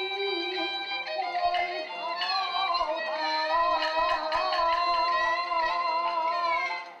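Peking opera music: the jinghu fiddle leads a sustained, wavering melody in yaoban meter, with a few percussion strokes in the second half.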